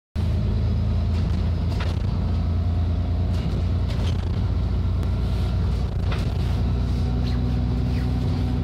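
Alexander Dennis Enviro400 double-decker bus heard from inside the passenger saloon while on the move: a steady low engine and drivetrain rumble with a few short rattles from the fittings. The engine note shifts about six seconds in.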